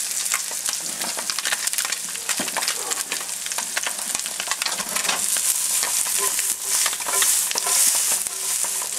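Onions, shiitake mushrooms and sun-dried tomatoes frying in butter and oil in a hot pan: a steady crackling sizzle that grows a little louder between about five and eight seconds in.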